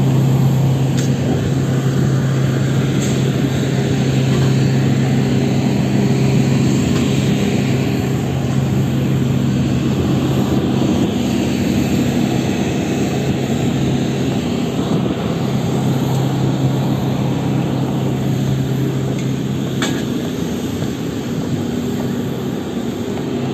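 Turboprop airliner engine running steadily: a loud, even drone with a deep hum.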